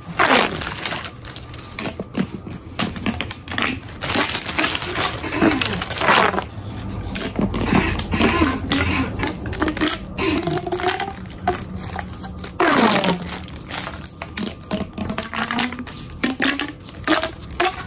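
Plastic pop tubes being stretched, bent and squeezed: dense crackling and clicking from the ribbed plastic, with several swooping pitch sweeps, mostly falling, as the tubes are pulled and pushed.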